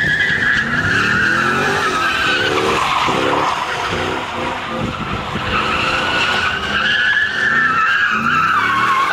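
Chevrolet Camaro doing donuts: its tyres squeal in a long wavering screech while the engine revs rise and fall again and again under wheelspin.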